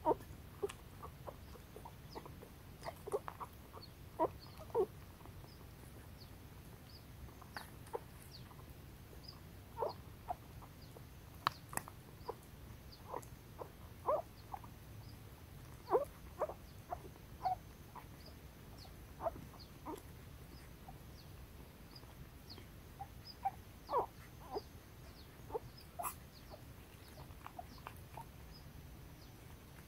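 Litter of young puppies whimpering and squeaking in short, scattered cries as they squirm together in the nest.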